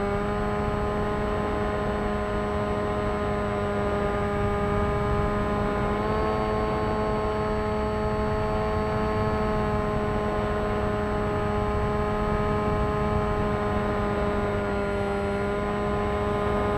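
Electric motor and propeller of an FT Explorer radio-controlled foam plane, heard from its onboard camera, running at a steady high-pitched whine. The pitch steps up slightly about six seconds in, over a constant rush of air.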